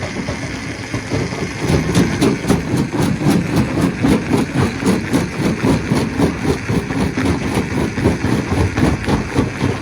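Stone crusher machine running, with a loud rhythmic pounding of about three beats a second over a steady high-pitched hum. The pounding builds up about a second and a half in and eases near the end.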